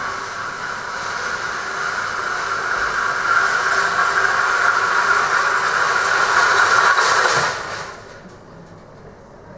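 Metal roll cages being wheeled across the loading yard, a rattling rumble with hiss that grows louder for about seven seconds and stops abruptly about eight seconds in.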